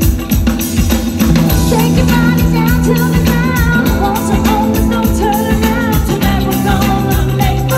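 Live pop-rock band music: a drum kit keeping a steady beat under bass and guitar, with a voice singing the melody.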